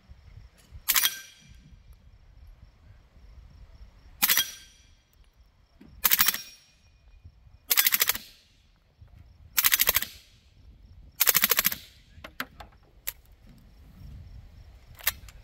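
Suppressed 9mm MP5 submachine gun firing six short full-auto bursts, each a rapid string of shots, with a few light clicks after the last burst.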